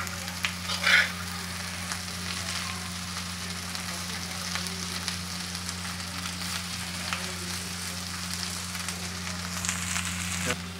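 Diced boiled potatoes frying in oil with cumin on an iron tawa: a steady sizzle with small crackles. A metal spatula scrapes across the iron pan a couple of times about a second in.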